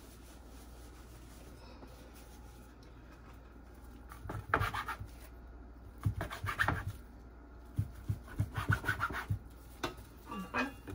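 Metal bench scraper cutting through dough and scraping on a wooden cutting board: a few short bursts of scraping and tapping, starting about four seconds in.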